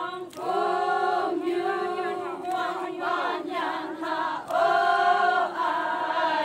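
A group of voices singing a Konyak Naga folk song in unison, in long held phrases. The singing swells loudest about half a second in and again near five seconds.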